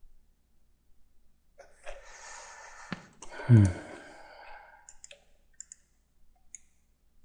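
A man lets out a long breathy sigh that ends in a short groan falling in pitch, followed by a few light clicks of a computer mouse.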